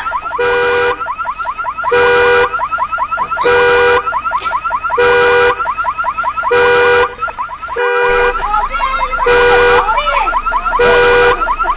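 Car alarm sounding: a rapid electronic chirping warble, with a horn-like tone blaring for about half a second every second and a half. The pattern breaks off briefly partway through and then resumes.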